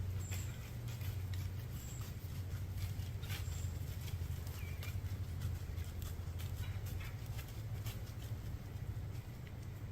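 Scattered light ticks and rustles over a steady low rumble, with a few brief high chirps.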